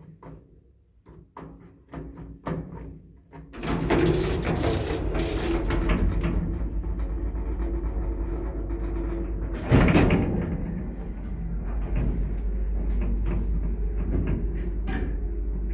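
Ride inside a 1980s Končar traction lift car. A few faint clicks follow a floor-button press, then about three and a half seconds in the lift starts and runs with a steady hum and rumble. A loud clatter comes about ten seconds in.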